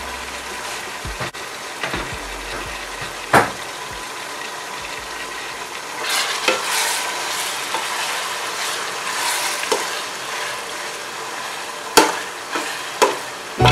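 Sliced onions and chopped tomatoes sizzling in oil in a steel pot while a metal ladle stirs and scrapes through them. The ladle knocks sharply on the pot about three seconds in and twice near the end.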